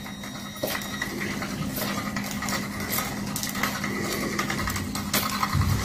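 Small electric motor of a rotating cat-teaser toy running with a steady hum, with irregular clicks and taps as the spinning wand and its attachments knock about.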